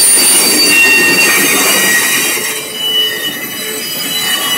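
Steel wheels of passing railroad cars squealing on the rails, several high tones held over a low rolling rumble. The squeal fades briefly about three seconds in, then comes back.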